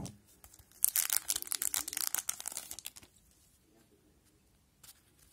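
Wrapper of an O-Pee-Chee hockey card pack being torn open, a dense crackling and crinkling that runs for about two seconds starting about a second in, then dies to quiet handling.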